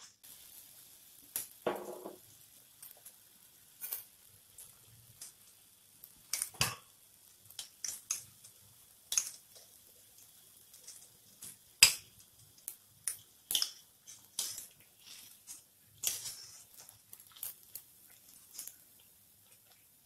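Hot oil sizzling steadily in a wok as sweet batter fritters (puas) deep-fry, with sharp clinks and taps of metal utensils against the pan and plate scattered throughout, the fullest knock about two seconds in.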